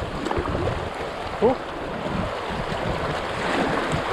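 Shallow river water rushing over gravel around an inflatable canoe, with wind on the microphone. A brief pitched squeak about a second and a half in is the loudest moment.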